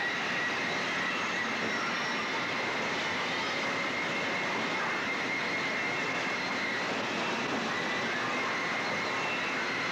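Steady fairground din of carnival ride machinery and crowd noise, with a faint steady high whine.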